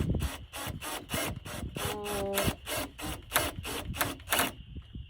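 Ratcheting screwdriver clicking, about four clicks a second, as hinge screws are worked, with a short squeak about two seconds in. The clicks stop shortly before the end.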